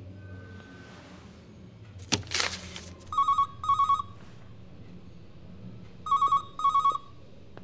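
A short rip of a paper poster being pulled from the wall about two seconds in, then an electronic intercom phone ringing: warbling double rings, two pairs about three seconds apart.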